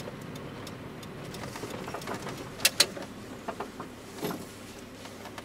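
Inside the cab of a GAZelle light truck moving slowly: steady engine and road noise with small rattles, and two sharp clicks close together about halfway through.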